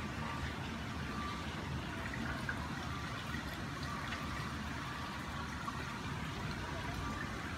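Steady rushing and trickling of water circulating in a terrace plunge pool.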